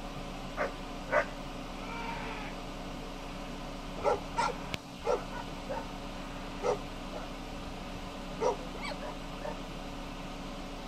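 A dog barking in short, separate barks, about nine of them at uneven intervals, two in the first second and a half, then a run of them through the middle, over a steady low hum.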